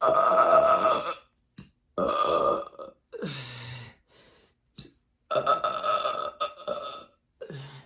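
A woman belching loudly from a belly full of carbonated sparkling water: about five burps in a row, the first and the fourth long, one in the middle dropping in pitch as it goes.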